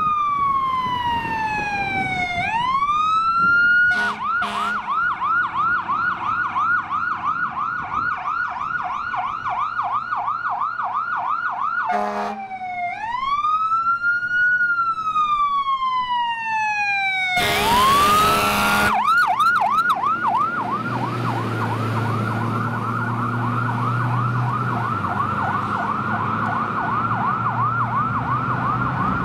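Fire engine's electronic siren sliding slowly down and back up in a wail, then switching to a fast yelp of about three sweeps a second, twice over. A loud horn blast cuts across it for about a second and a half before the yelp returns. The truck's engine rumble grows underneath in the last few seconds.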